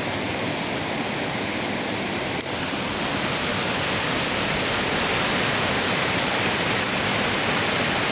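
Fast-flowing stream rushing over rocks: a steady, loud rush of water that grows a little louder after about three seconds.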